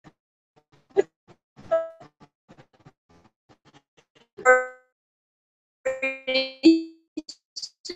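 A series of metallic clinks and short ringing dings. The loudest ding comes about halfway through, and a quick run of several more comes near the end.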